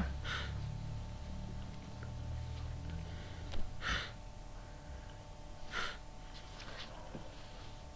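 Quiet room tone with a steady low electrical hum, and three short breaths close to the microphone, one right at the start, one about four seconds in and one near six seconds.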